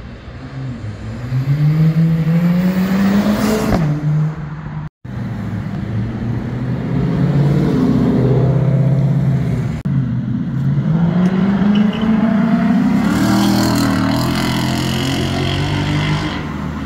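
Sports car engines accelerating hard in a street, in several edited clips, with the engine pitch climbing twice to a peak. A black Ford Mustang passes close by, its engine running loud.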